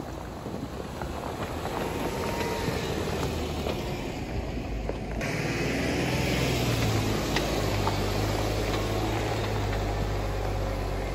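Jeep Wrangler driving slowly past on a rocky dirt trail: the engine runs at low revs with a steady low hum, and the tyres crunch and click over loose gravel and stones. It is loudest just past the middle as it goes by.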